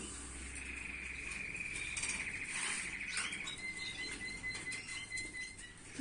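Canary singing: a fast rolling trill, then about a second in from the halfway point a clear held whistled note, with a few soft clicks and rustles of birds moving in the cages.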